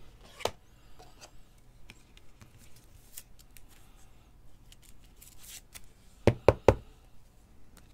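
Rigid clear plastic top loaders for trading cards handled with small clicks and rustles, then three quick, loud knocks about six and a half seconds in.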